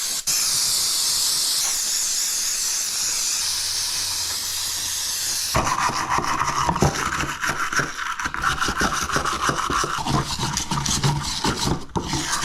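Aerosol brake cleaner spraying in a steady hiss. About five and a half seconds in it stops suddenly and gives way to fast, scratchy rubbing and scraping.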